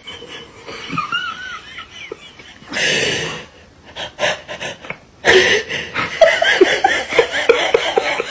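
A person laughing hard in short, breathy bursts, getting louder about halfway through and running on as a fast series of gasping laughs.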